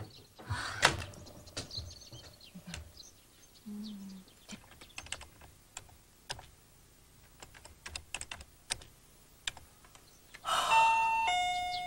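Fingers typing on a word processor's keyboard, a quick irregular run of key clicks. Near the end a doorbell rings with a two-note falling chime.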